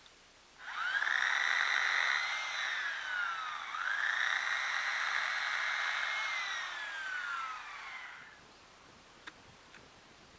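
Chainsaw revved up to full throttle twice. Each time the pitch climbs quickly and holds; after the second rev it slides back down, and the sound stops about eight seconds in.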